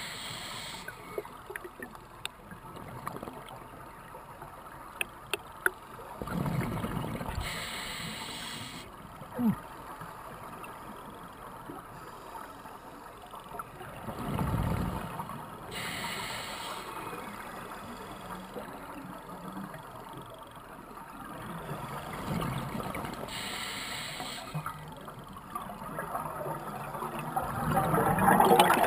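Scuba regulator breathing, muffled through an underwater camera housing. A short hiss of inhalation comes about every eight seconds, and each is followed some seconds later by a rumble of exhaled bubbles. The bubbles near the end are the loudest.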